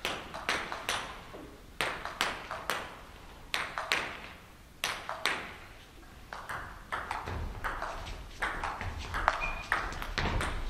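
Table tennis rally: the celluloid ball clicking off the rubber bats and the table in quick, irregular succession, each click ringing briefly in the hall.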